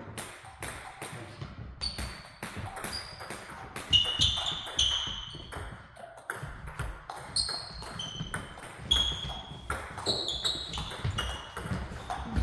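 Table tennis balls clicking rapidly off bats and the table in a doubles rally, many strokes ringing with a short high ping.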